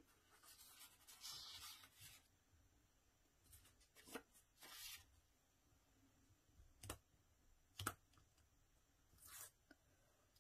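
Faint rustling and scratching of fingers picking at and peeling the protective backing film off double-sided tape on a card tag, with a few small ticks.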